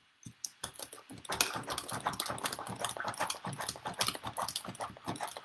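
Hand-pumped Pampered Chef whipped cream maker worked in quick, even strokes: a rapid run of clacks as the plunger whips heavy cream that has formed soft peaks but is not yet stiff.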